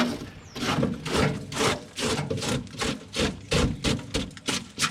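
Rhythmic rasping or scraping strokes, about three a second and slightly uneven.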